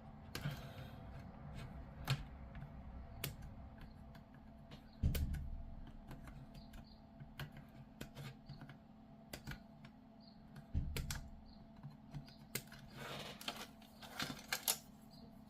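Plastic model kit pieces being handled and fitted together: scattered light clicks and taps, with a duller knock about five seconds in and another about eleven seconds in.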